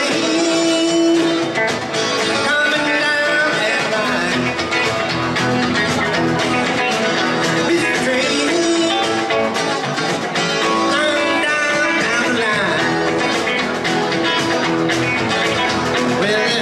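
Live rock and roll band playing an instrumental stretch: electric guitar lines with bent notes over a second guitar and a drum kit keeping a steady beat.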